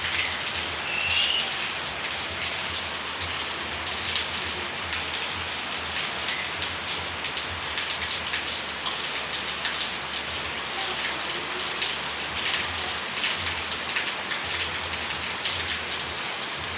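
Steady rain falling, with many individual drops ticking on nearby surfaces.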